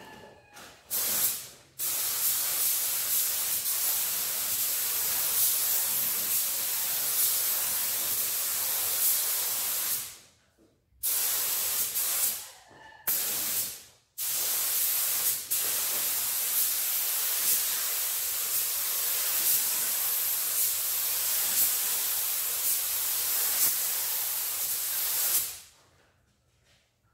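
Compressed-air paint spray gun hissing as it sprays primer, in trigger-pulled passes: a brief burst about a second in, a long pass of about eight seconds, two short bursts, then another long pass of about eleven seconds that cuts off near the end.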